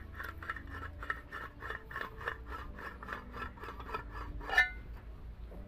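Hand snips cutting a slot into the rim of a thin steel food can: a rapid run of short metal-on-metal strokes, about five a second, with one sharper, louder stroke near the end.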